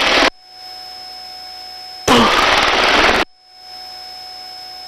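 Helicopter crew intercom with the hoist operator's headset microphone switching on and off. A loud rush of helicopter noise cuts off sharply just after the start, comes back about two seconds in for about a second, and cuts off again. Between the openings the intercom is much quieter, with a low hiss and two faint steady tones.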